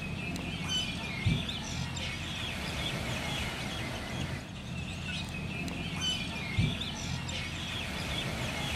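Birds chirping over a low steady hum, with two short low thumps.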